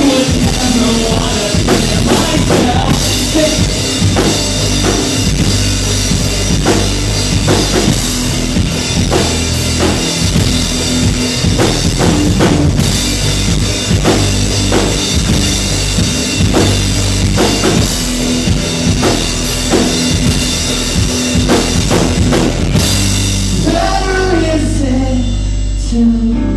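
Live rock band playing loud: drum kit and two electric guitars in an instrumental stretch, the drums hitting steadily throughout. The singing comes back in near the end.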